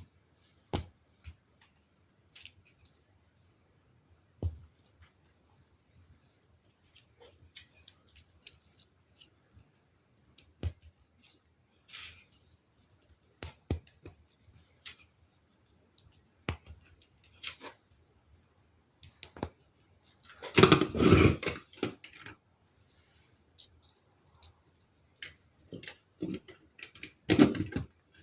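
Small plastic LEGO Technic parts clicking and tapping as they are handled and pressed together. A louder rattle of pieces comes about twenty seconds in, and a shorter one near the end.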